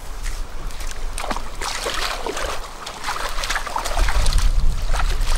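Shallow river water splashing and sloshing as hands wash in it at the edge, in a run of short, irregular splashes. A low rumble comes in near the end.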